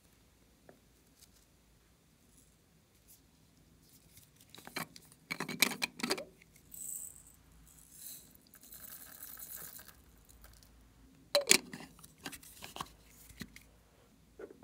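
A small plastic pot being handled, tapped and tipped out over a glass dish: two clusters of sharp clicks and rattles, one about five seconds in and one near eleven seconds, with a short hiss and a soft rustle between them.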